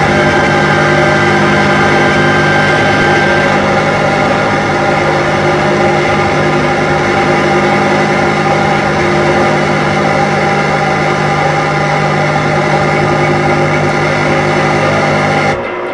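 Live electronic noise music: a loud, dense drone of many held tones over a harsh noisy wash, cutting off abruptly near the end.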